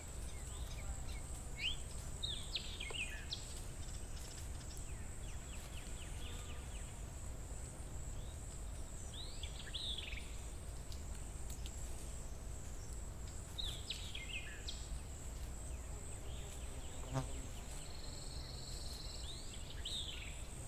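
Countryside ambience: a continuous high insect trill over a low steady rumble. A bird gives short, falling calls in small groups several times. There is one brief soft knock near the end.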